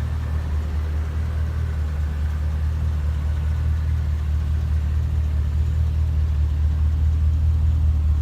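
Holden Commodore SS-V's 6.0-litre V8 idling steadily with a low, even hum.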